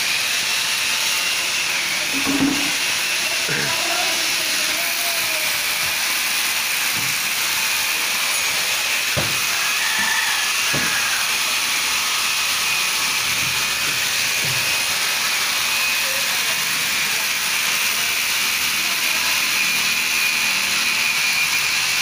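Steady hissing noise with a faint high whine, the sound of a machine or power tool running on a construction site. A few sharp knocks come about nine to eleven seconds in.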